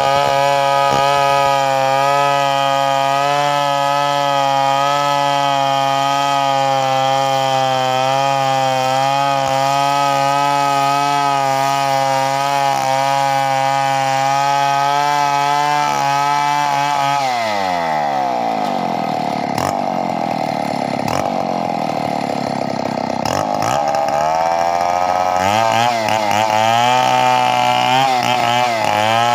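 Two-stroke chainsaw running at high revs with a slight wavering in pitch. About 17 seconds in the engine speed falls away, and it runs slower for several seconds with a few knocks. It revs back up near the end.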